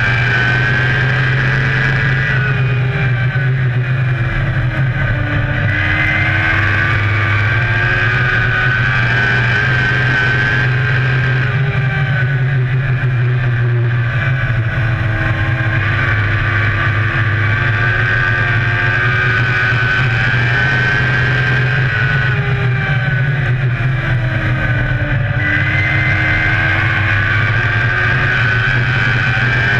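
A dirt oval race car's engine at racing speed, heard from inside the cockpit. Its pitch dips three times, about ten seconds apart, as the driver lifts for the turns, and climbs again down the straights.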